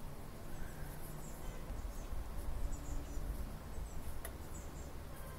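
Faint rustling of jersey fabric being handled and pinned by hand, over a low steady room hum, with one faint click about four seconds in.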